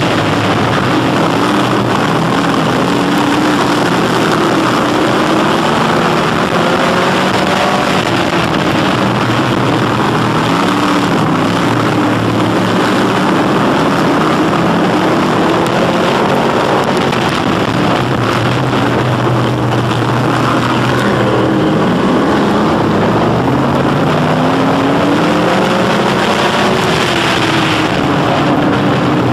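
Crate V8 engine of a dirt-track sportsman modified race car, heard close up from its bumper, running hard at racing speed. Its pitch rises and falls again and again as it revs and lifts through the laps.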